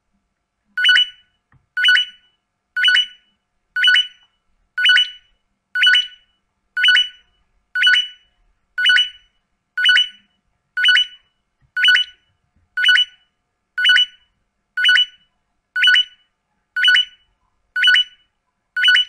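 Electronic beep sound effect repeating about once a second, nineteen short two-toned beeps in all. Each one marks a counted item popping onto the slide, the count running up to nineteen.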